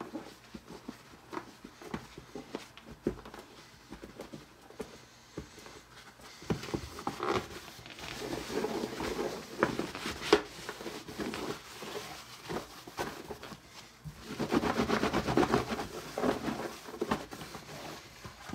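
Paper towel rubbing and scrubbing over a hard plastic game tray, with small scattered taps and clicks. The scrubbing comes in stretches from about a third of the way in and is loudest a few seconds before the end.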